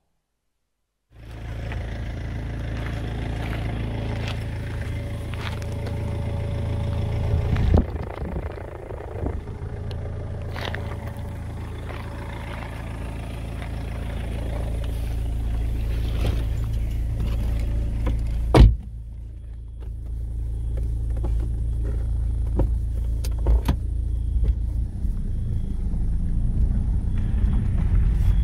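BMW E46 318d's M47N four-cylinder common-rail diesel engine running after about a second of silence, with the ticking, knocking noise of worn Bosch fuel injectors. A few short sharp knocks stand out, the loudest about two-thirds of the way in.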